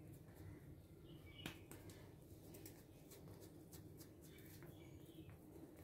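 Near silence: a few faint ticks and soft scraping as a silicone spatula smooths barfi mixture in a steel plate, with faint bird chirps in the background.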